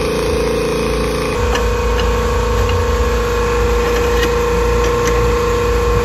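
A loud, steady machine hum with a constant droning tone and deep rumble, and a few faint light clicks over it.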